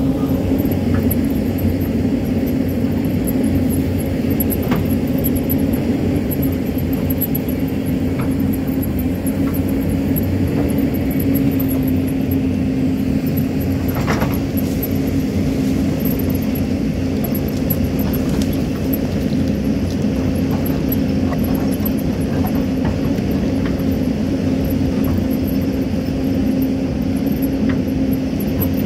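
Hyundai hydraulic excavator's diesel engine running steadily under digging load with a constant low drone, as the bucket cuts into a hillside of earth and rock. A few sharp knocks of stones and dirt falling come through the engine sound.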